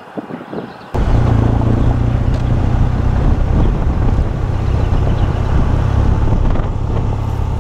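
BMW R1200GS flat-twin (boxer) engine running steadily at cruising speed while riding, with wind noise on the helmet-camera microphone. It cuts in suddenly about a second in, after a moment of quiet.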